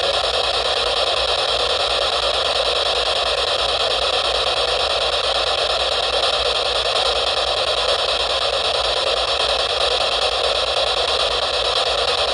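SB-7 spirit box sweeping through radio stations, giving out a loud, steady hiss of radio static with no clear voice in it.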